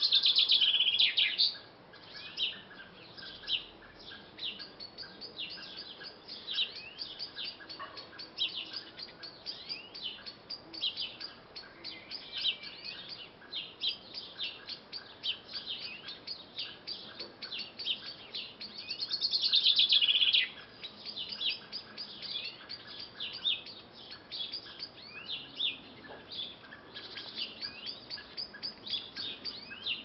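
Garden birds singing and chirping, a dense stream of short high calls. Two louder songs of about two seconds each, one at the start and one about two-thirds through, fall in pitch toward their ends.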